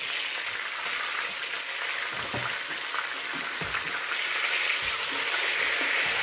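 Hot oil sizzling steadily around a whole smoked chicken as it browns in a pot, getting a little louder in the second half. A few light knocks come from a ladle and wooden spoon turning the chicken.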